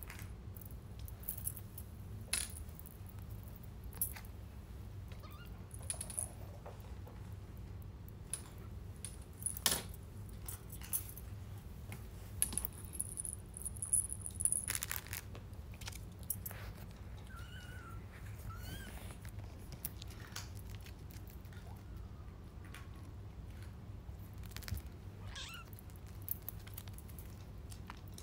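Kittens playing on a glass tabletop: scattered taps and clicks from paws and toys, then a few short, faint high-pitched kitten meows in the second half, over a steady low hum.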